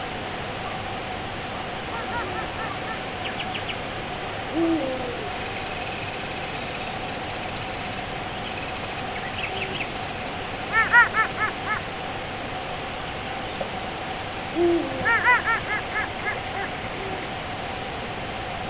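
Owl hooting: two short low hoots, about four and a half and fourteen and a half seconds in, each followed by a series of five or six quick stacked calls a few seconds later, over a steady hiss with a faint high trill in the middle.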